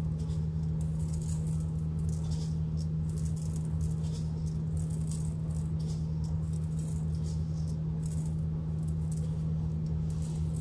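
White sesame seeds rattling in a plastic shaker jar, shaken in many short, irregular bursts, the seeds pattering down onto dough rolls in a pan. A steady low hum runs underneath.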